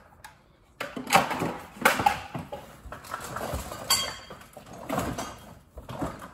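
Rummaging through a cardboard box of tools and battery chargers. Hard plastic items knock and clatter irregularly as they are moved and dropped, starting about a second in.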